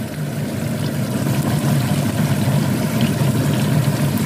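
Cornstarch-coated chicken pieces frying in hot oil in a small pan: a steady sizzle and crackle of bubbling oil.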